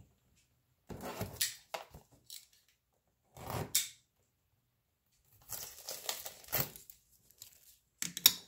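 A cardboard box being opened: tape being slit and cardboard tearing in several short rasping bursts, with a sharp click near the end.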